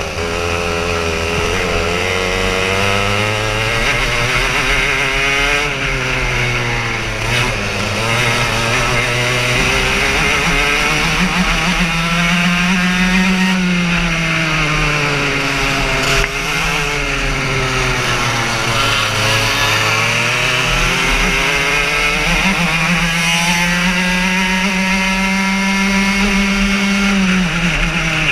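Racing kart engine heard close up from the onboard camera, its pitch climbing as it accelerates down the straights and dropping sharply as the driver lifts for corners, several times over. A steady hiss runs underneath.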